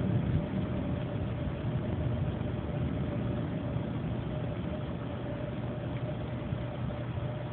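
A steady low engine hum, as of a vehicle idling, with a faint steady higher whine over it. A louder low rumble dies away in the first half second.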